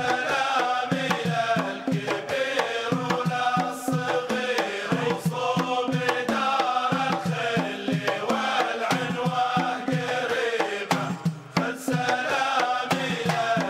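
Background music: chanted singing over hand-drum percussion.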